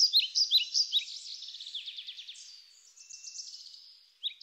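A songbird singing: loud, sharp, repeated falling notes, about five a second, give way about a second in to a quieter, rapid trill, and the loud repeated notes start again near the end.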